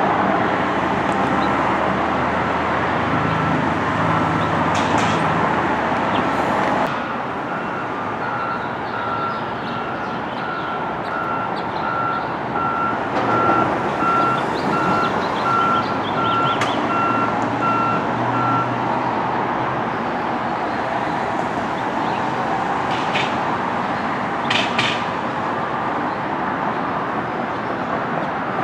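Reversing alarm of a construction vehicle beeping about once a second over a steady rumble of engines and site noise; the background noise shifts abruptly about seven seconds in, and the beeping stops past the middle.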